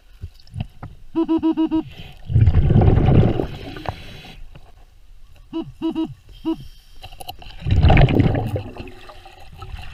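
Underwater metal detector beeping in quick runs of short, same-pitch beeps, five about a second in and four more around the middle, signalling a metal target. Twice in between, a diver's regulator exhalation sends out a loud rush of bubbles.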